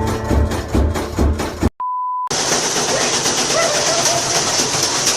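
Strummed guitar music cuts off. After a brief gap comes a single steady beep of about half a second, then a loud, even rushing hiss with faint short whistle-like glides in it.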